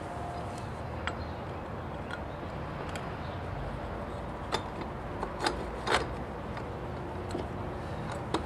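A few light clicks and knocks of plastic parts as a flex joint and its spacer ring are fitted against a butterfly valve's flange and onto its threaded studs, the two loudest about five and six seconds in, over a steady low background rumble.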